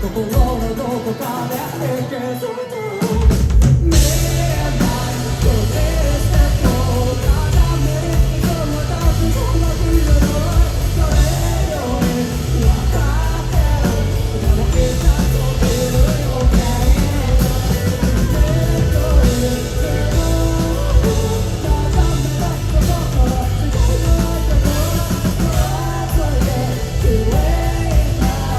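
Live rock band playing: a sparser passage for about three seconds, then the drums and bass come in hard with a cymbal crash about four seconds in and the full band carries on.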